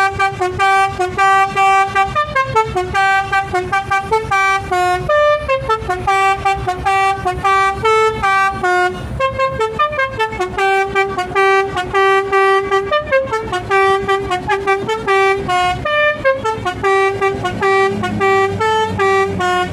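Basuri telolet horn, a multi-note bus horn, playing a tune: loud pitched notes stepping up and down, sounded in quick repeated toots and held notes.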